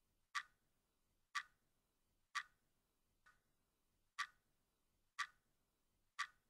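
A clock ticking about once a second, seven short ticks in near silence, one of them fainter about halfway through.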